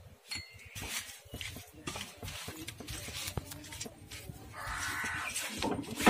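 Hands squeeze and rub salt and turmeric into pieces of chela fish in a steel bowl: wet squelching, with the fish and fingers scraping and knocking on the metal. A brief pitched cry sounds about five seconds in.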